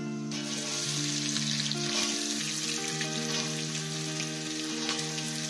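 Chopped red onions tipped into hot oil and whole spices in a steel pot, sizzling and frying; the sizzle starts suddenly just after the start as the onions hit the oil. Acoustic guitar music plays underneath.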